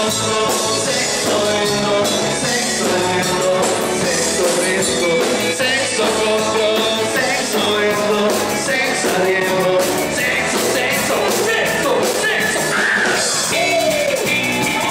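A band playing a song with a steady beat, with a singer's voice.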